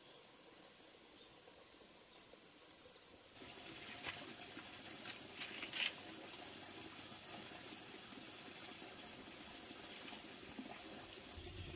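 Small wood fire crackling and hissing as split wood and bamboo sticks are laid on it, with a few sharp clicks and knocks of wood about four to six seconds in. The first three seconds hold only a faint steady hiss.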